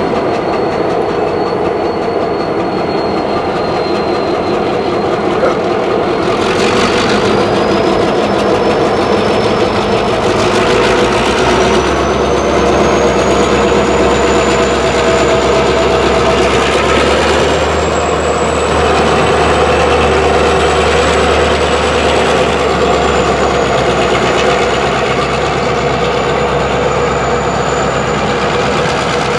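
A string of railroad tank cars rolling slowly past, wheels rumbling and clacking over the rails, with a thin high wheel squeal whose pitch slowly rises. A low engine drone joins about eleven seconds in.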